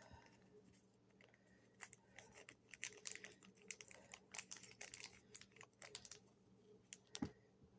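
Faint, irregular clicks and light taps of small items being handled, such as earrings and their packaging, over a low room hum.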